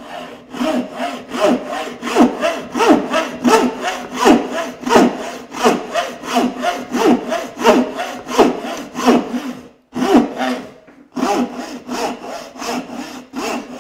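Turning saw cutting a curve into the end of a wooden stretcher, with quick, even back-and-forth strokes about two to three a second. The sawing stops briefly about ten seconds in, then starts again.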